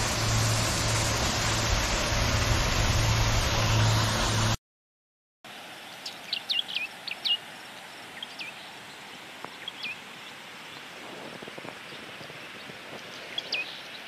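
Loud steady rush of a waterfall; then, after a sudden cut, a quieter outdoor background where a bird gives short, sharp downward-sweeping chirps, several in quick succession and then a few scattered ones.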